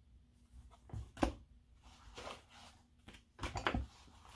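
Quiet handling of paper giveaways at a table, such as cards, flyers and notebooks: a sharp tap about a second in, then a short cluster of knocks and rustles near the end.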